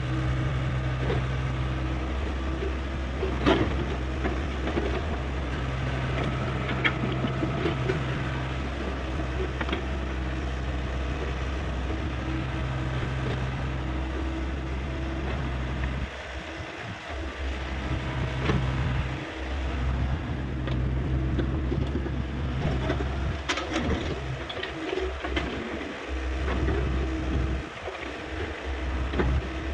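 Hyundai 85A excavator's diesel engine running steadily as the machine works, its drone dipping and returning several times in the second half, with occasional sharp knocks, the loudest about three and a half seconds in.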